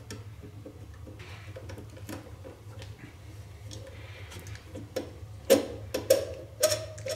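Small plastic clicks and rattles of wire connectors and wires being handled and twisted off in a ceiling junction box. Louder clicks come in a short cluster near the end, over a steady low hum.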